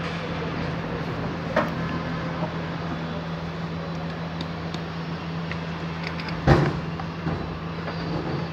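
Hammer knocking on the steel armour wires of an armoured power cable while a cable gland is fitted: a few light knocks, then one sharp, louder strike about six and a half seconds in. A steady low hum runs underneath.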